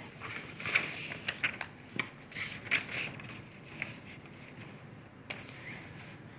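Handling noise from a paper notebook and pen: a run of soft clicks and brief rustles over a faint hiss in the first few seconds, then one sharper click about five seconds in.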